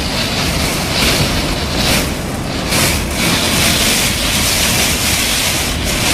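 Storm wind and driving rain: a loud, steady rush that swells and eases in gusts, with a low rumble of wind on the microphone beneath it.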